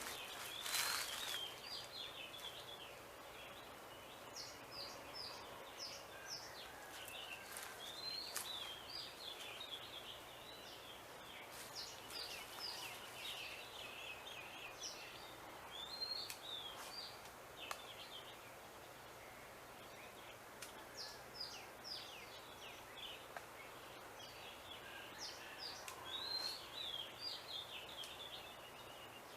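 Small birds chirping, many short high calls repeated over and over across faint outdoor background noise. A brief noisy burst about a second in.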